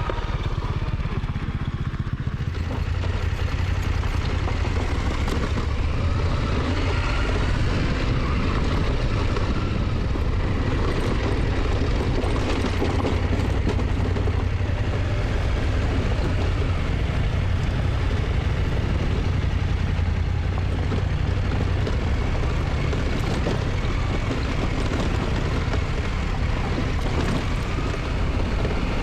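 KTM motorcycle running at a steady speed while riding, its engine drone steady throughout.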